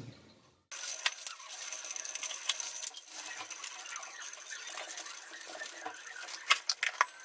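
Whole spices (star anise, cinnamon, cloves, cardamom, bay leaf) frying in hot oil in a pressure cooker: a dense, steady crackle of small pops, starting abruptly under a second in, with a few sharper pops near the end.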